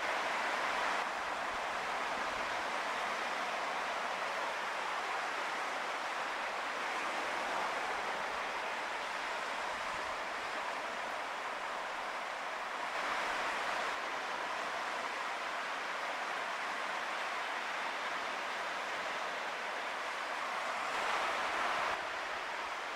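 Sea surf: a steady wash of small waves, swelling a little louder three times.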